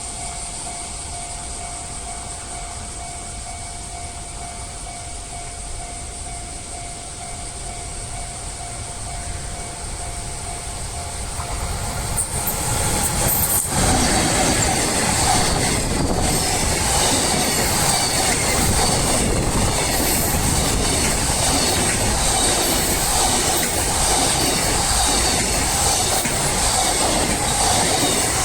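A level-crossing warning bell rings steadily. About twelve seconds in, a freight train hauled by an EF210 electric locomotive reaches the crossing and its wagons keep rolling past, loud enough to cover the bell.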